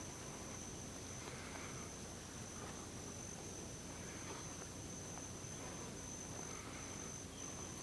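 An insect trilling on one steady high note, breaking off briefly twice near the end.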